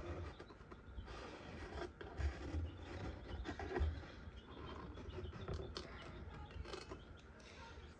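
Handling noise as eggs are moved and held to a candling light: irregular rubbing and scratching with small clicks, and a few soft low thumps about two and four seconds in.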